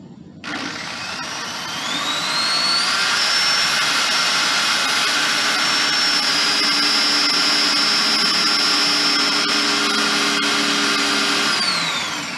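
Electric drill mounted in a drill-press stand, drilling a quarter-inch pilot hole in black steel pipe. The motor whine rises in pitch as it spins up about half a second in, runs steadily, then falls in pitch and dies away near the end as the trigger is released.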